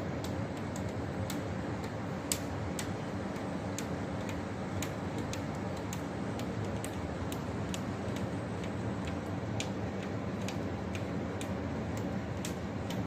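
Steady rain ambience with irregular sharp ticks of drops landing close by, a few each second.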